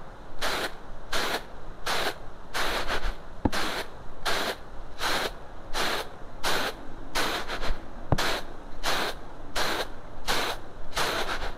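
Red rice grains swishing across a large round winnowing tray as it is tossed by hand, a rhythmic hiss about three times every two seconds.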